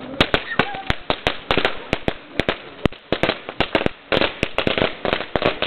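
Bonfire crackling, with frequent sharp, irregular pops over a steady hiss of burning.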